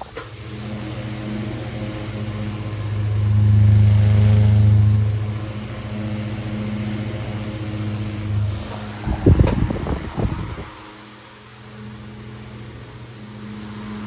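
Antique 1911 Robbins & Myers 16-inch gearback table fan running: a steady motor hum that swells about four seconds in. About nine seconds in comes a gusty rush of air lasting a little over a second, after which the hum is quieter.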